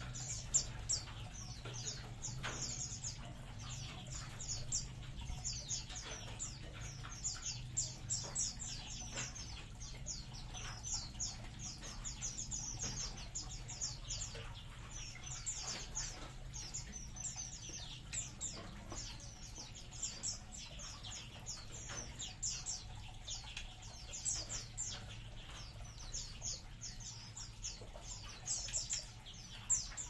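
A colony of small aviary songbirds chirping and twittering, with many quick, high, falling calls overlapping without pause. A steady low hum runs underneath.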